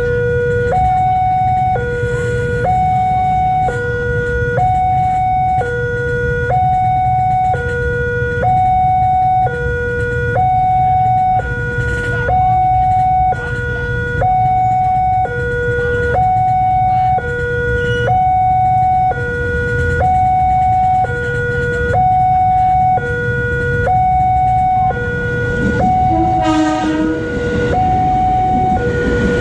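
Railway level-crossing warning alarm sounding two alternating electronic tones, low and high, each held about a second, over the low rumble of idling motorcycles. Near the end the arriving KRL electric commuter train sounds a short horn.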